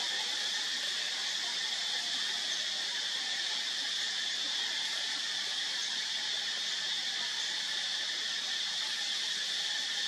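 A steady, high-pitched insect chorus that drones on without a break.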